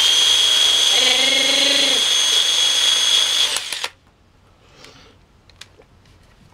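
Makita cordless drill running at full speed with an ear of corn on its bit, a loud steady high-pitched whine that cuts off suddenly about four seconds in. A few faint clicks follow.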